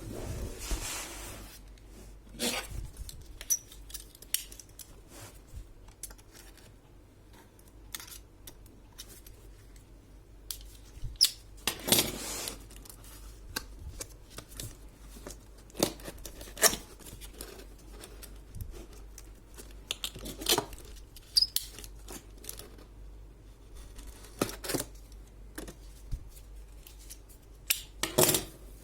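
Handling noises of a laptop box and its packaging being opened: scattered sharp clicks, taps and brief rustles at irregular intervals.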